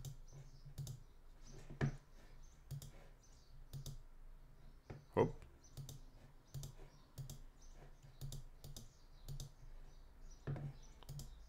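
Computer mouse and keyboard clicking at an irregular pace, with one louder knock about five seconds in.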